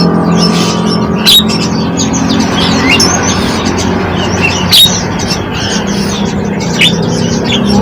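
Small songbirds chirping and calling in quick, varied notes, with three louder sharp calls spread through, over a steady low drone.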